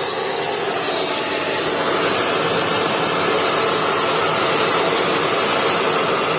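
Loud, steady rushing noise of moving air, like a blower running, with a faint high whistle over it.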